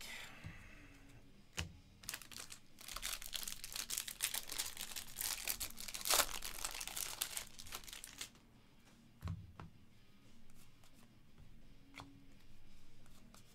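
Foil wrapper of a baseball card pack being torn open and crinkled by hand, a crackling rustle lasting about six seconds. A single soft knock follows, then quieter handling of the cards.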